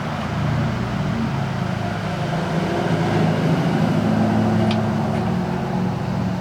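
Steady low mechanical rumble with a shifting hum, with one brief faint click about two-thirds of the way through.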